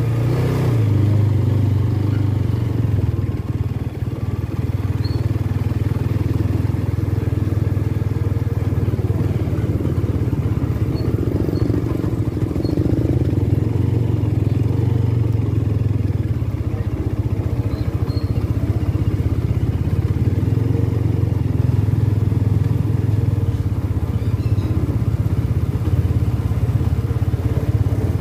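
Motorcycle engine running steadily as it is ridden at low speed, heard from the rider's seat.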